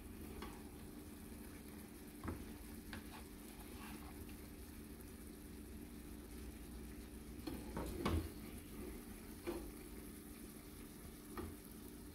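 Tomato sauce simmering quietly in a frying pan on a gas burner, with a few short scrapes and knocks of a spatula and a wooden spatula against the pan as stuffed zucchini halves are lifted out; the loudest clatter comes about eight seconds in.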